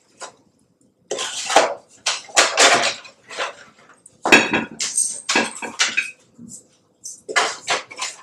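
A metal utensil scraping and clinking against a metal sheet pan as roasted potatoes are served off it onto plates. The scrapes and clinks come in irregular bursts, one after another.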